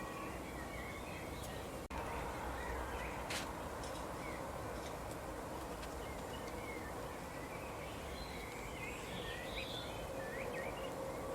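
Small birds chirping and twittering in short scattered calls over a steady background hiss and hum, with a brief dropout about two seconds in and a sharp click soon after.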